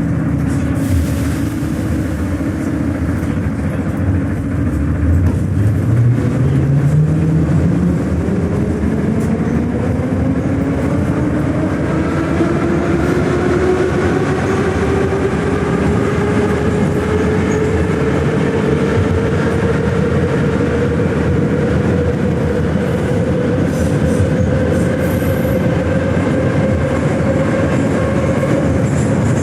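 81-717/714 'Nomernoy' metro train pulling away from a station and accelerating. Its traction motors whine, rising steadily in pitch for about fifteen seconds and then levelling off at running speed, over the steady rumble of wheels on rail.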